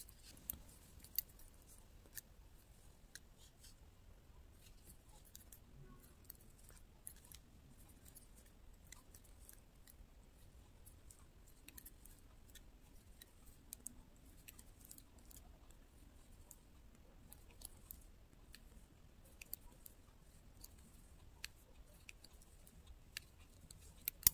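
Faint, irregular clicks and ticks of metal double-pointed knitting needles touching one another as a sock is knitted in the round, a few sharper clicks standing out here and there.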